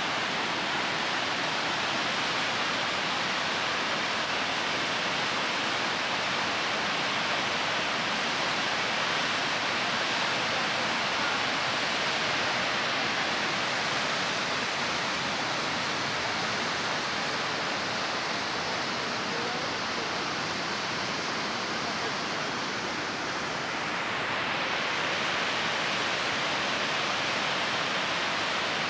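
Gibbon Falls, a waterfall on the Gibbon River, rushing in a steady roar of falling white water.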